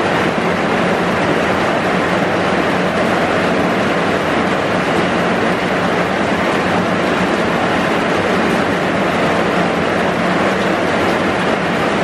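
Heavy rain pouring steadily, an even dense hiss with no let-up, heard from inside a bus shelter.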